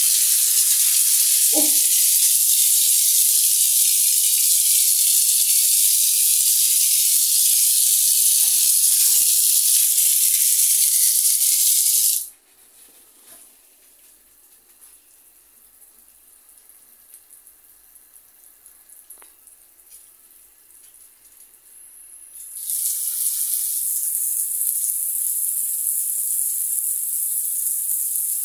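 Water gushing steadily from a newly installed shower mixer valve's spout, stopping abruptly about 12 seconds in. After a quiet stretch with a few faint knocks, water starts again about 23 seconds in, spraying from the overhead rain shower head.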